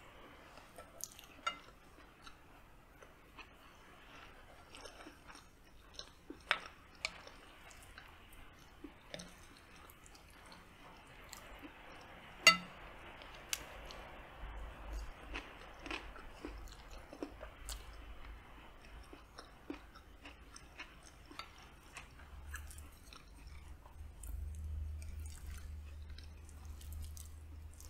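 Close-up chewing of a mouthful of rice, smoked sausage and beans, with wet mouth sounds and scattered sharp clicks, the loudest about halfway through.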